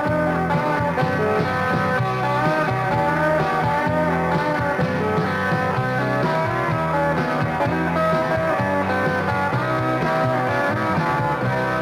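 Rock song with guitars playing steadily.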